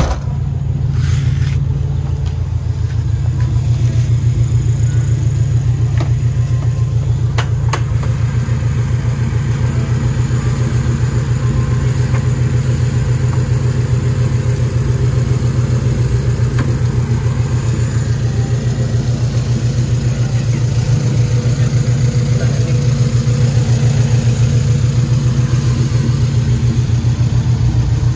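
Car engine running steadily with a fast, even pulse and no revving; it is running again after repair work.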